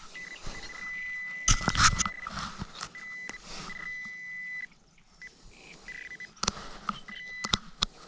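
A metal detector's steady high electronic tone sounding on and off as it passes over a coin buried in beach sand. Sand is dug with a knife between the tones, making scrapes and a few sharp knocks.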